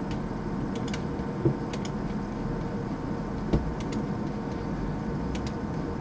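A few faint, sharp computer mouse clicks over a steady background hum.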